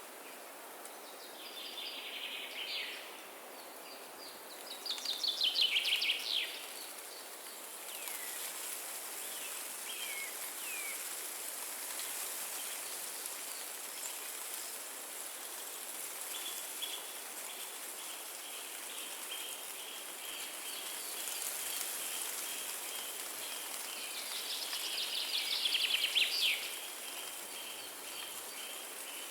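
Wind rushing steadily through forest trees, with songbirds singing over it. The loudest parts are short bright trills about five seconds in and again near the end, with scattered chirps between them and a fast run of repeated high notes through the second half.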